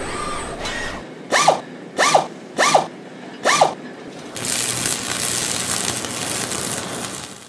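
Sound effects for an animated industrial-robot-arm logo: four quick mechanical servo whirs about two-thirds of a second apart, each a short falling sweep in pitch. From about four seconds in, a steady loud hiss follows and fades away at the end.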